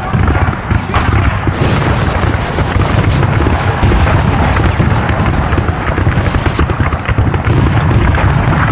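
Continuous battle sound effects: a dense din of gunfire and booms over a steady low rumble.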